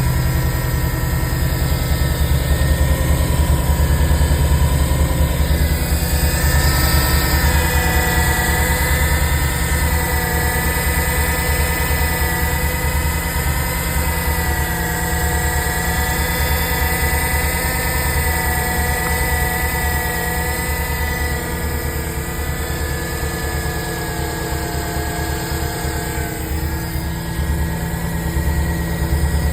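Subaru Impreza WRX STI (GDB) running, a steady low engine rumble with a whine of several steady tones over it, wavering slightly in pitch, rising a little about seven seconds in and easing near the end. It is the noise the owner questions as a possible abnormal noise before repair.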